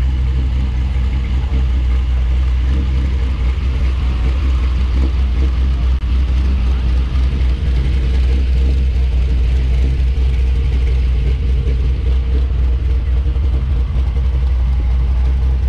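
Hot-rodded 1955 Chevrolet two-door's engine running loud and steady at low revs as the car rolls slowly past, a deep even rumble with no revving.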